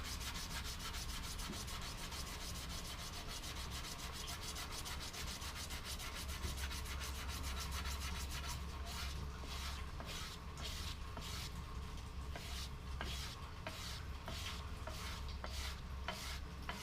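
Electric sander running on an aspen walking stick: a steady motor hum under continuous scratchy sanding. From about halfway through, the sanding comes in regular back-and-forth strokes, a little under two a second.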